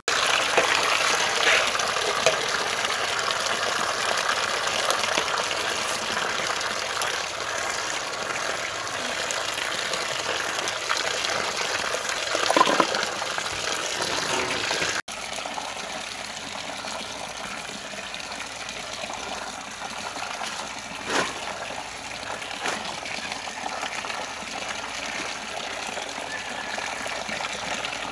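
Water running and splashing as fresh red chillies are stirred and rinsed by gloved hands in a basin of water, with a few brief splashes.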